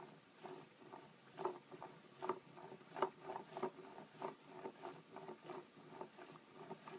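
Faint clicking and light rustling of a paper four-bar wing linkage as it cycles, with soft taps about every two-thirds of a second.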